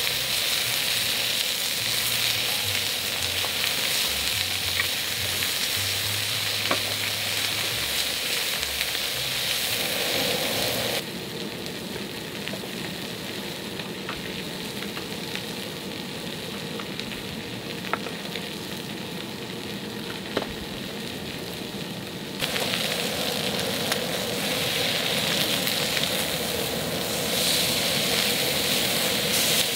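Strips of pork belly sizzling as they fry on a hot round griddle pan over a gas burner. The sizzle drops quieter for about ten seconds in the middle, then returns, with a few light clicks as the meat is turned.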